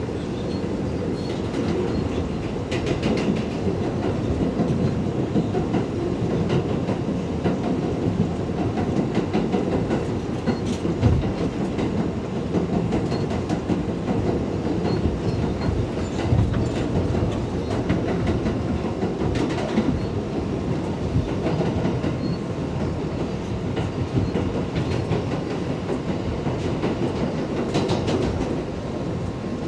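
A New York City 7 train subway car (R188) running between stations, heard from inside the car. The wheels keep up a steady rumble on the rails, with a few sharper clacks now and then.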